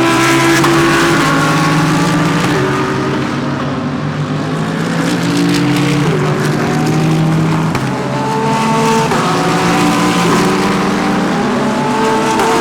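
GT3 race cars passing through a corner one after another, their engines changing pitch in steps as they shift gears, with several engine notes overlapping.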